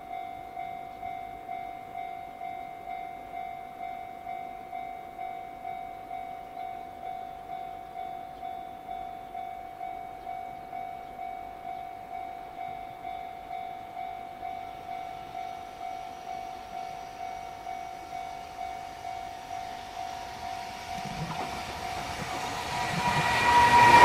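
Japanese level-crossing warning bell ringing its steady electronic clang, a little over two strokes a second. In the last few seconds a JR Freight EF210 electric locomotive hauling a container train approaches and passes close by, growing loud at the end.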